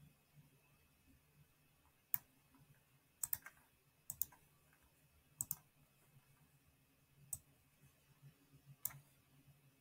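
Computer mouse clicking: about nine short, sharp clicks, some in quick pairs, spaced a second or so apart.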